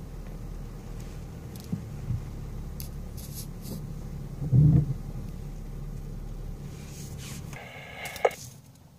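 Low, steady cabin rumble of an SUV crawling over a muddy track, with windscreen wipers swishing across the wet glass a few seconds in and a heavy thud about halfway through. Near the end a brief scraping rattle, after which the rumble drops away to a faint hiss.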